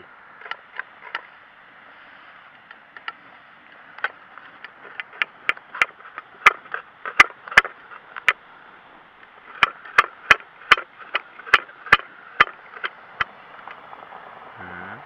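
A knife chopping garlic cloves in a small metal dish, sharp clicks of the blade striking the metal at about two or three a second, in two runs with a short pause between them.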